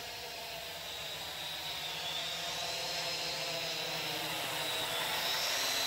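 Venom Pro GPS quadcopter drone in flight: a steady high whine of its propellers and motors that wavers slightly in pitch and grows gradually louder.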